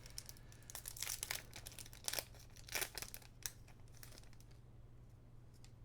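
Foil trading-card booster pack wrapper and cards being handled: a run of short crinkles and rustles that dies down about four and a half seconds in, leaving a few faint clicks.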